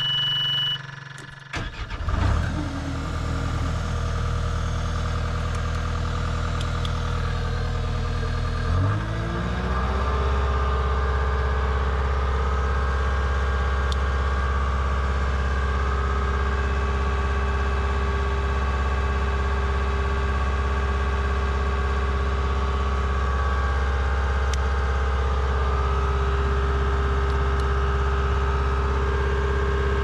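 Caterpillar skid steer's diesel engine being started. A short electronic beep sounds as the key is turned, the engine cranks and catches about two seconds in, then idles. Just before ten seconds in it revs up to a raised throttle and runs steadily from there on.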